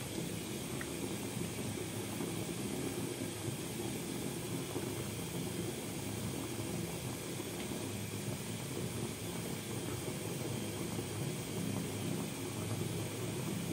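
Bath tap running, water pouring steadily into a filling bathtub: a continuous, even, deep rush.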